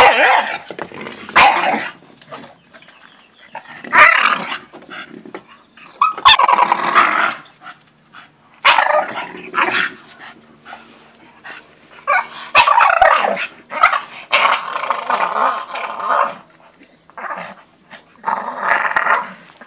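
Staffordshire bull terriers growling and barking in rough play over a coconut, in repeated irregular bursts with short pauses between. A few sharp knocks are mixed in.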